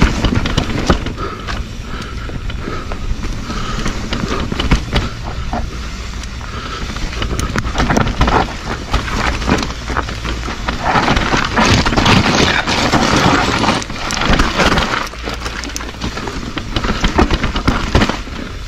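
Mountain bike rolling down a dirt trail: a steady rush of wind on the microphone, with constant clicking and rattling of the bike over bumps. It grows louder and rougher for a few seconds past the middle.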